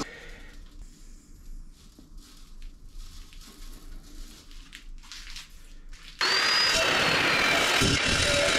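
Faint rustling of metal chips being handled, then about six seconds in an Evolution R355CPS 355 mm chop saw with a TCT multi-material blade switches on suddenly, its motor whine rising briefly as it spins up and then running loud and steady.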